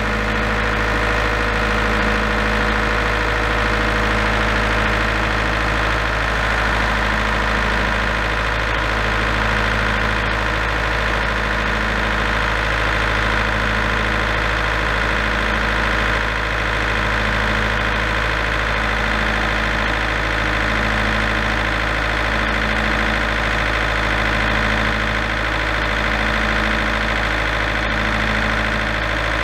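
Large diesel generator running steadily at constant speed, with a slow, even pulsing beat about once a second. It keeps running without shutting down.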